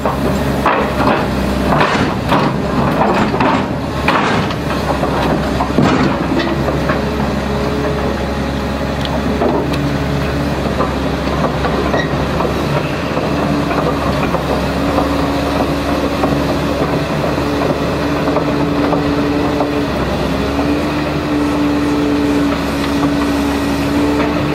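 Crawler excavator's steel tracks clanking and knocking as it climbs the ramp and travels along a lowboy trailer deck, over the steady hum of its engine. The clanks are thickest in the first few seconds; a steady whine sets in about halfway through.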